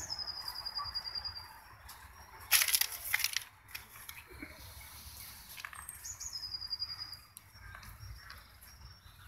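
A songbird outdoors singing a short high trilled phrase twice, about six seconds apart. A loud brief rustle about two and a half seconds in.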